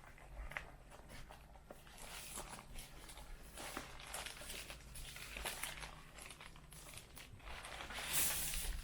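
Packaging being handled while unboxing a mechanical keyboard: crinkling and rustling with scattered small clicks and knocks, and a louder rustle near the end.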